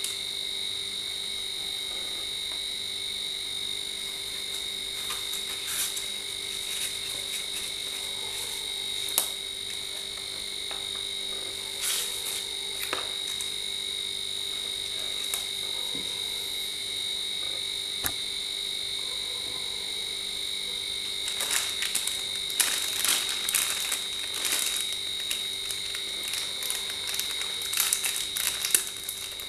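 Plastic wrapping crinkling and clicking as a studio microphone and its parts are handled and unpacked, busiest over the last eight seconds. Underneath runs a steady high-pitched drone.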